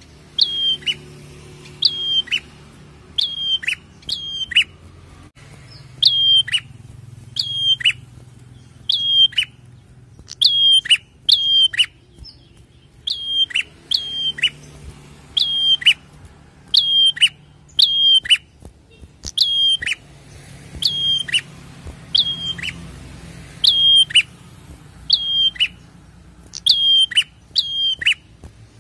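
Caged prenjak songbird calling: sharp, high chirps repeated about once a second, often in quick pairs or triplets, with a brief pause partway through.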